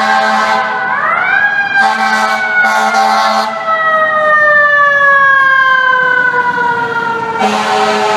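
Fire engine siren sounding as the truck passes: the wail climbs sharply about a second in, then slides slowly down in pitch for several seconds before a new, steadier tone takes over near the end.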